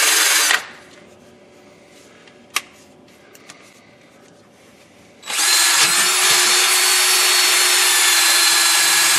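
Cordless drill spinning a wire wheel brush against rusty exhaust Y-pipe flange nuts: a steady hiss over a motor whine. It stops about half a second in, a couple of light clicks fall in the pause, and the brushing starts again about five seconds in.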